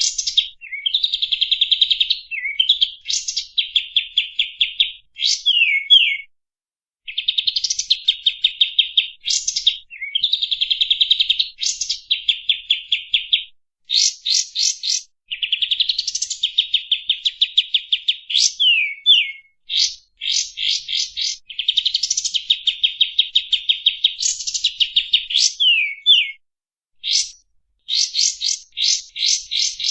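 A kapas tembak songbird singing continuously. Its phrases of rapid, even trills are broken by quick upward-sweeping whistles, and they repeat with short pauses between them.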